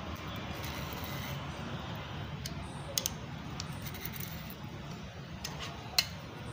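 A few sharp metal clicks from a band-type piston ring compressor as it is tightened around a piston and handled against the engine block: a quick pair about three seconds in and the loudest single click near the end, over a steady low background hum.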